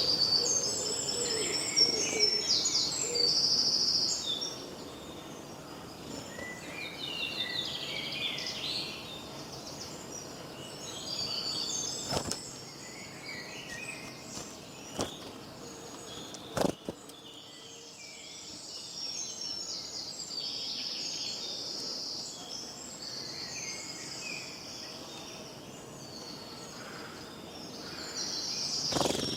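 Several songbirds singing and chirping with varied short calls and trills over a faint steady background hiss, with two sharp clicks about twelve and seventeen seconds in.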